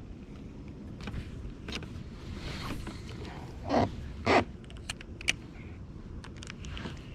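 Fishing gear handled aboard a plastic kayak: two short scraping swishes a little past the middle, then a few light clicks, over a steady low background noise.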